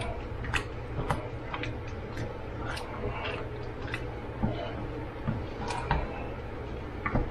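A cooking utensil clicking and tapping against a pot as the sloppy joe sauce is stirred, irregular light clicks about once or twice a second, over a steady low hum.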